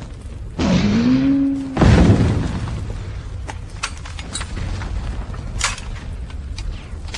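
Film battle sound: about half a second in, a loud noisy blast carrying a rising pitched tone for about a second, then a heavy explosion just before two seconds in that fades slowly, followed by scattered single gunshots.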